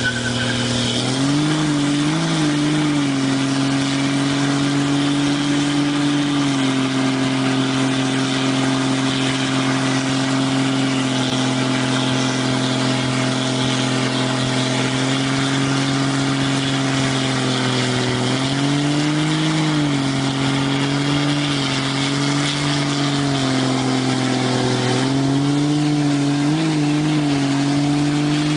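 Dodge Ram 2500 pickup doing a burnout. The engine is held at steady high revs, its pitch briefly wavering a few times, over the hiss of the spinning rear tyres.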